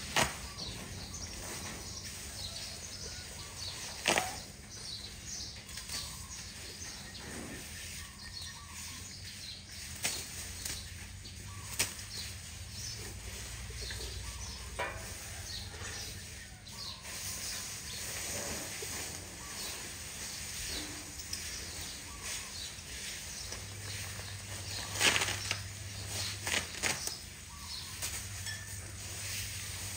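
Asian elephant feeding on cut grass: scattered rustles and short sharp knocks as it handles the fodder, with a cluster of louder ones about 25 seconds in.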